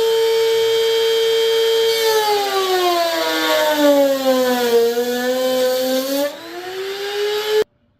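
Router running in a router table, a loud steady whine at full speed. About two seconds in its pitch sinks to roughly half as it loads up cutting wood, then climbs back before the motor stops abruptly near the end.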